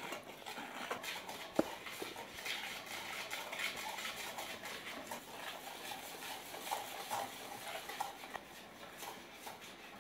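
Wire whisk beating egg yolks and sugar against the sides of a stainless steel mixing bowl, a continuous run of quick clinks and scrapes as hot cream is poured in, with one sharper knock about a second and a half in.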